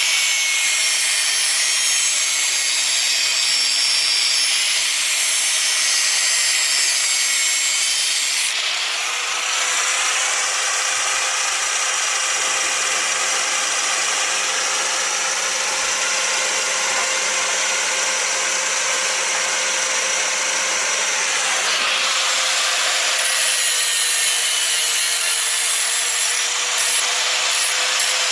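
Electric grinder running without a break, grinding on a metal link arm, with a steady motor whine under the rasping noise. The grinding sound changes about a third of the way in and again near three-quarters of the way through.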